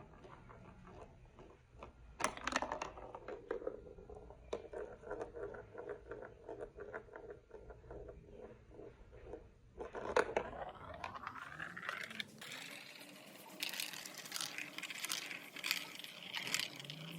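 Marbles rolling and clattering through a plastic building-block marble run: a rolling rumble dotted with clicks, a rising whir about ten seconds in, then a denser rattle near the end.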